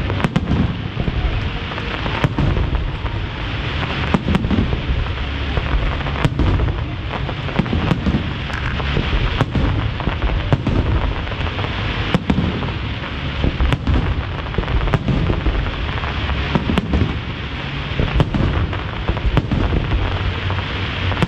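Aerial fireworks display: shells bursting in a sharp bang every second or two, over a continuous rumble of further bursts.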